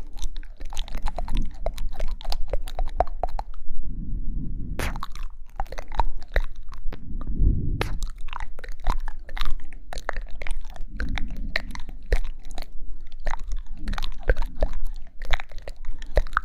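ASMR mouth sounds made close to the microphone: rapid wet clicks and smacks, with a soft low swell every few seconds.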